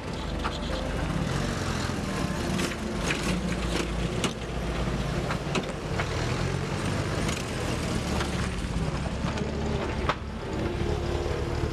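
Vintage cars driving slowly past, an open jeep and then a pre-war open touring car, their engines running with a steady low rumble. Scattered sharp clicks and knocks are heard throughout.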